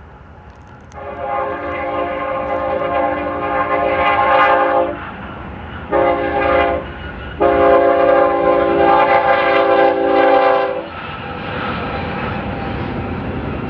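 Diesel locomotive air horn on a BNSF stack train sounding a multi-note chord in three blasts: long, short, long. The pattern is typical of a crossing or warning signal. After the last blast, the passing train continues as a steady rumble.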